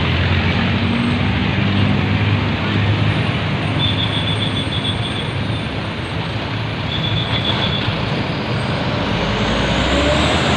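Heavy vehicle traffic passing close by: a loud, steady rumble with a low engine drone.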